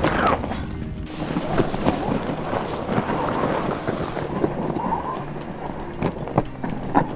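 Irregular rustling with scattered sharp knocks, over background music.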